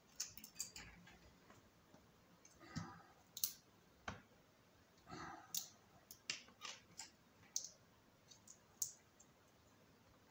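Scattered light clicks and taps of plastic opening picks, a spudger and smartphone parts being handled and set down on a tabletop during a teardown, with a couple of brief scrapes.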